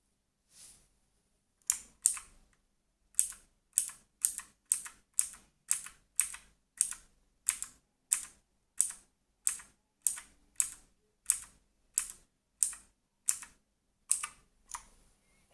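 Redragon Manyu (K579) keyboard keys being pressed one at a time: a few uneven strokes at first, then a steady run of single key clacks at about two a second.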